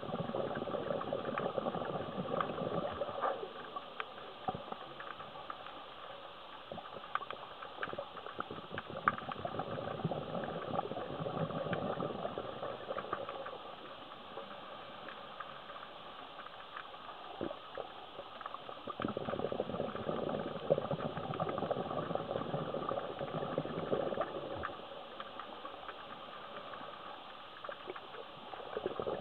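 Scuba diver breathing through a regulator underwater: four spells of crackling, bubbling exhalation, each a few seconds long and about ten seconds apart, with a quieter hiss between them.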